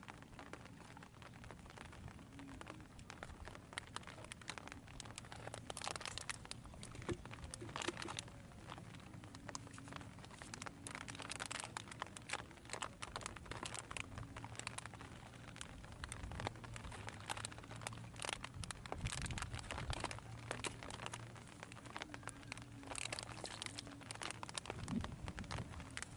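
Faint, irregular rustling and crinkling handling sounds, coming in little clusters, over a faint low steady hum.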